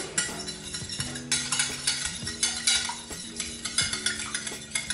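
Wire whisk beating two raw eggs in a glass baking dish: a rapid, continuous ticking of the whisk wires against the glass.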